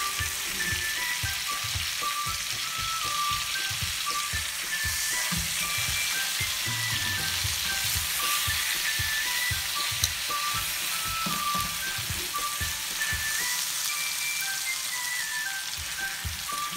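Rib eye steaks sizzling steadily in butter and oil in a frying pan as they are turned and held on their edges to sear the sides, with a simple background music melody playing.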